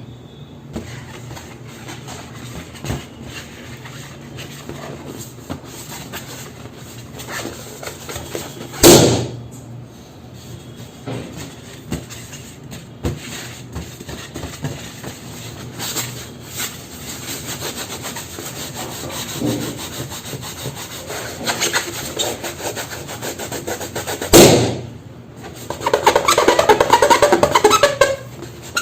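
Rubber balloons rubbing as they are handled, with two loud, sharp balloon pops, one about a third of the way in and one about fifteen seconds later. In the last few seconds a louder, rapid rubbing sets in.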